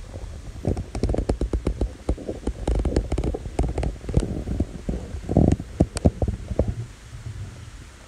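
A black cook pot is set down on the trivet of a single-burner camping gas stove, making a run of clicks and metallic knocks over several seconds. The clatter dies away about seven seconds in, over a steady low rumble.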